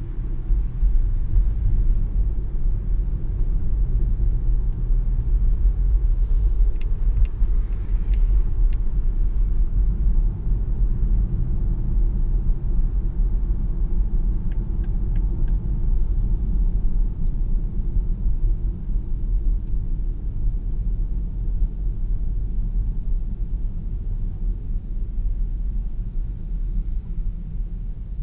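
Steady low road and tyre rumble heard inside the cabin of a BMW 740Le iPerformance plug-in hybrid sedan driving at city speeds, with a few faint ticks about a quarter and half way through.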